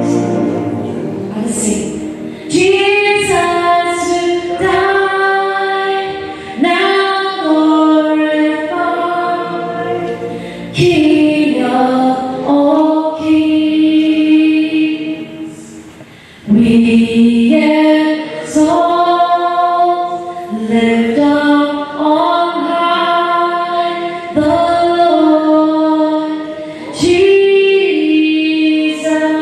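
A choir singing in phrases a few seconds long, holding long notes that step from pitch to pitch, with women's voices prominent.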